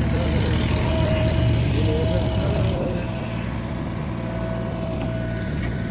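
A JCB digger's diesel engine runs steadily with a low drone and a thin steady whine above it, then eases off and quietens about three seconds in.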